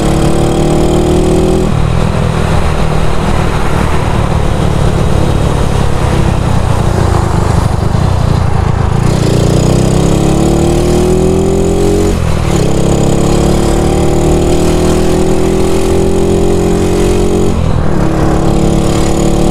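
Yamaha SRX scooter's freshly overhauled engine running at speed under heavy wind rush on the microphone. About halfway through, the engine note climbs steadily, dips briefly, then climbs again for several seconds before dropping back near the end.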